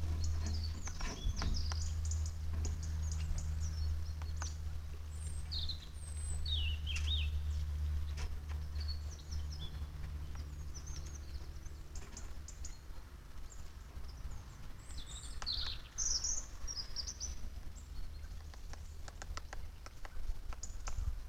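Wild birds chirping in short, scattered calls over a steady low hum, with occasional sharp clicks or taps.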